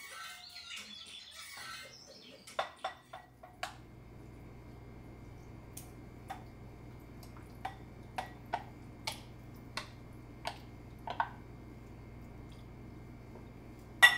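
A wooden spoon tapping and scraping against a plastic container and glass bowl as raw chicken pieces are spooned out, about a dozen light knocks at uneven intervals. Near the end comes one louder, sharper clink with a brief ring as a red ceramic jar is handled.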